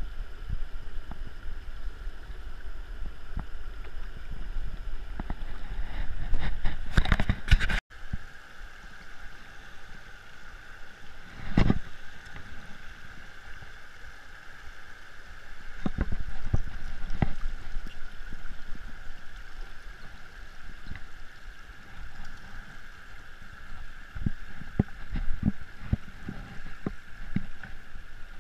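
Shallow, stony river running with a steady rush, with scattered knocks from handling. The sound cuts off abruptly about eight seconds in, and a single louder knock follows a few seconds later.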